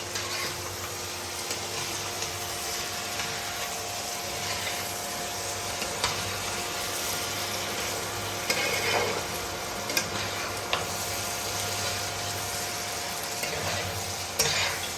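Goat-head mutton frying with spices in a frying pan, sizzling steadily while it is stirred, with a spatula knocking and scraping against the pan a few times.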